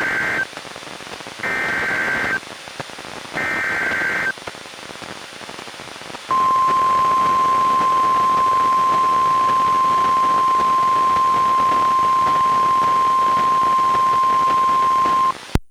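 NOAA Weather Radio alert from a Reecom R-1630 weather radio over steady reception hiss: the SAME digital header's warbling data bursts sound three times, about a second each, then after a short gap the steady 1050 Hz warning alarm tone holds for about nine seconds and cuts off suddenly. The alarm tone signals that a warning (here a severe thunderstorm warning) is about to be read.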